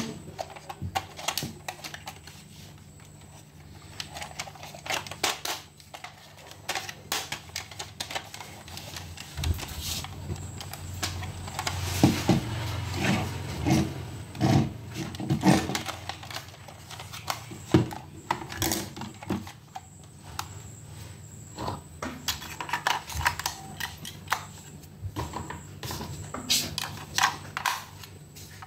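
Hands handling a plastic toy tank: scattered clicks, taps and knocks of hard plastic as it is moved and turned over, busiest in the middle and again near the end, over a faint steady low hum.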